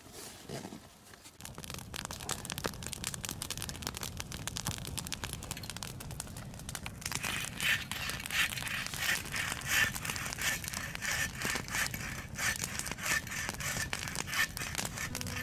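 Campfire crackling and popping. From about seven seconds in, it is joined by the rhythmic rasp of a hand saw cutting a branch, about two strokes a second.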